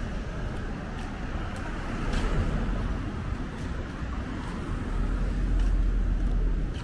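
Street traffic: a car drives past close by, its engine and tyre rumble over a steady low traffic drone that grows louder in the second half. Faint regular footstep ticks sound under it.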